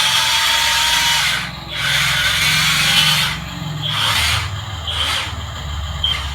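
Small electric motor of an RC toy vehicle whirring, briefly dropping off a couple of times.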